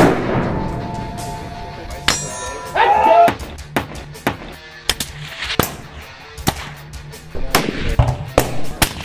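Background music with rifle shots and the clang of bullets hitting steel plate targets cut in over it, a string of sharp hits spread through.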